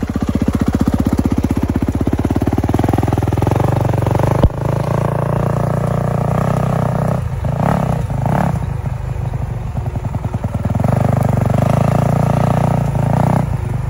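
Yamaha YZ250F's 250 cc four-stroke single-cylinder engine running as the bike pulls away in first gear, its note rising and falling with uneven throttle. There is a single sharp click about four and a half seconds in.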